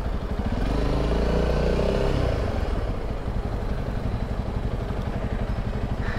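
Honda CRF300 Rally's single-cylinder engine running at low revs as the motorcycle rides slowly. The revs rise and fall briefly about a second in, then hold steady.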